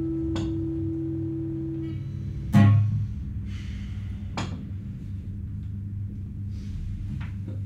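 The last acoustic guitar chord ringing out and fading away over about two seconds, followed by handling noise: one sharp knock about two and a half seconds in, the loudest sound here, and a few fainter clicks.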